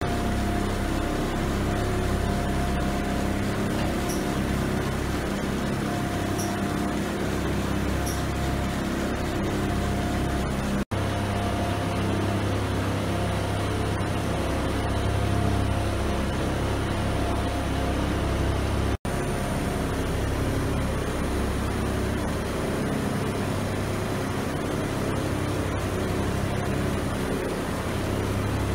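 Carpet lengthwise cutting machine running with a steady mechanical hum and a held whine, with faint ticks about every two seconds early on. The sound drops out for an instant twice.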